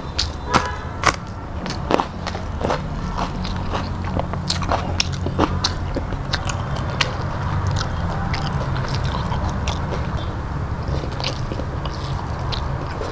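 Close-up eating sounds: a few sharp crunching bites into a raw green chilli in the first two seconds, then steady chewing and smaller mouth clicks as rice and vegetables are eaten by hand, over a steady low hum.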